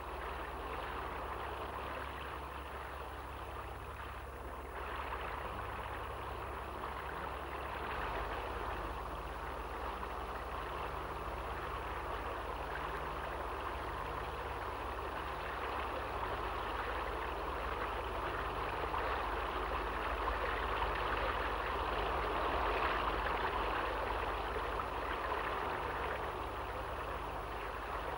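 Fountain jets, sprays and cascades splashing and rushing in a steady hiss of falling water, over a low steady hum.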